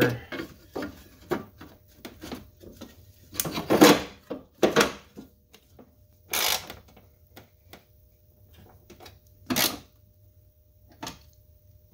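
Steel mount bracket being handled and fitted over the transmission mount studs in a car's engine bay: irregular metal clanks, knocks and scrapes, the loudest clatter a few seconds in, then again at about six and a half and nine and a half seconds.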